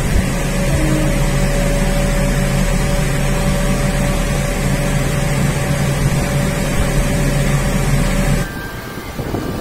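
Steady machine hum with a low drone and a faint high whine, heard inside an enclosed, moving ride cabin high above the park. It cuts off abruptly about eight and a half seconds in, giving way to quieter, windy open-air noise.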